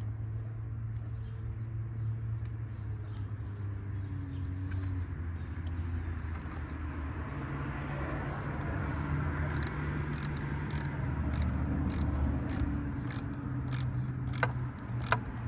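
Light clicks and handling noises of a red power wire and its terminal being fitted at a car battery, over a low steady hum. Two sharper clicks near the end are the loudest sounds.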